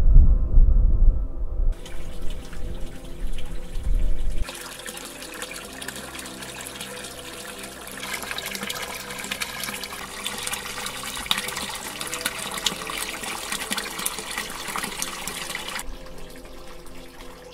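Water pouring steadily from an outlet pipe and splashing below, a dense rushing hiss that starts about four seconds in and falls away near the end. Before it, a deep low rumble is the loudest sound.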